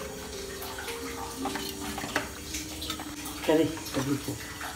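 Water running in a kitchen, with scattered light clinks of utensils and a faint voice briefly about three and a half seconds in.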